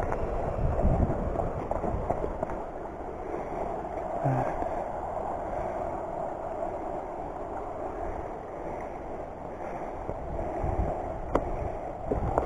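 Small river running over rocks, a steady rushing, with wind buffeting the microphone in low rumbles about a second in and again near the end, and one sharp click shortly before the end.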